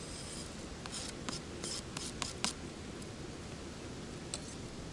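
A quick run of short scrapes and clicks about a second in, and one more click near the end, over a steady low background noise.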